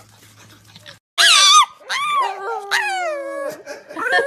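Pug howling in loud, drawn-out yowls that slide down in pitch, starting about a second in. Before that there is only faint background noise.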